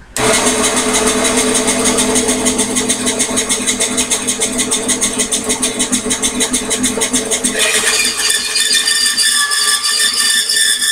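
Microlux variable-speed bandsaw switched on and running with a steady, fast-pulsing hum. About seven or eight seconds in, a higher-pitched whine joins as the blade starts into the test-cut workpiece.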